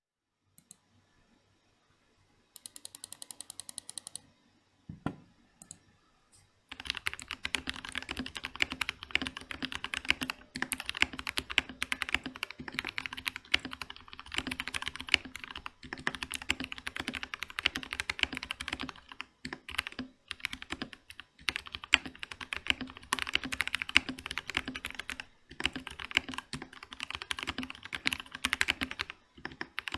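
Fast typing on a Vortex VX5 mechanical keyboard with lubed Otemu Brown tactile switches, foam added inside the case. It opens with a short even run of rapid clicks and a thump, then continuous typing from about a quarter of the way in, with brief pauses.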